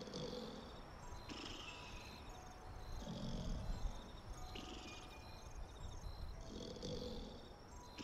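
A person snoring slowly and deeply, with rough swells every few seconds, under a steady layer of high, repeated chirping.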